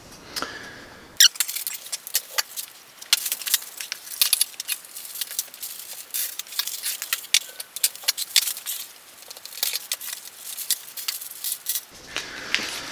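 Quick, dense clinks, taps and crinkles of glass pendant shades and bubble-wrap packaging being handled and unpacked, thin-sounding, with no low end.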